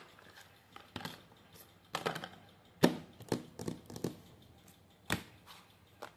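Handmade paper packaging being handled: irregular crackles and light taps of paper, the sharpest one about three seconds in.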